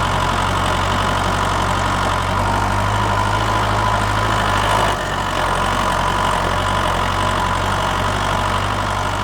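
An engine running steadily at idle, its low hum shifting slightly about five seconds in.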